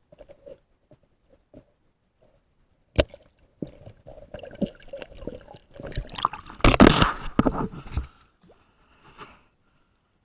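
Water sloshing and gurgling in irregular spells, with a sharp click about three seconds in. The loudest spell comes about six to eight seconds in.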